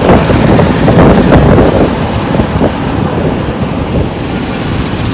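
Wind buffeting the microphone while riding on a moving scooter, with road and engine noise underneath; loudest for the first two seconds, then a little quieter.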